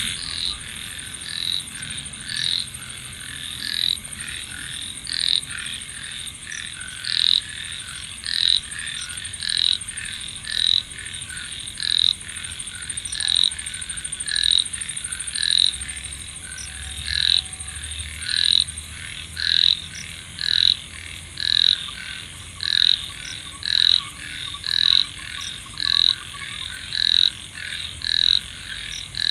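Frogs croaking in a chorus: one loud call repeats about once a second over a dense background of other frogs calling. A steady high-pitched trill runs beneath it and stops about two-thirds of the way through.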